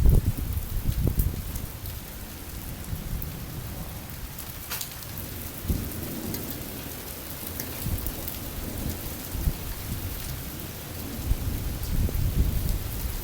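Thunder rumbling over steady rain. The rumble is loudest in the first second or two and swells again a few times later.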